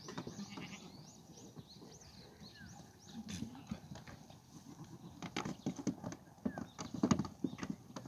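Goat kids' hooves tapping and clattering on a corrugated metal pipe and scuffing on dirt as the herd moves about, the taps coming thicker and louder in the second half.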